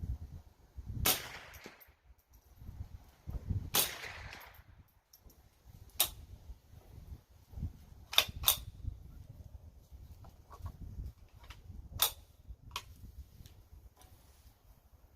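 Savage A22 semi-automatic .22 LR rifle firing: about seven sharp shots at irregular intervals, the first two the loudest with a short echo after each.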